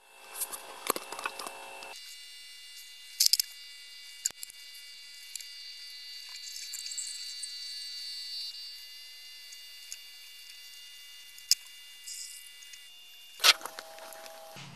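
Z-axis stepper motor of an FLSUN S resin 3D printer driving the build platform along its lead screw during the start-up reset. It makes a steady high-pitched whine of several tones, which changes about two seconds in. A few light clicks come along the way.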